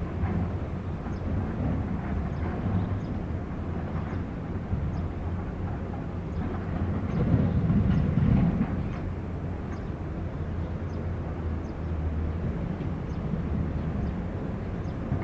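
Diesel engine of heavy construction machinery running steadily, with a surge of power for a second or two about seven seconds in.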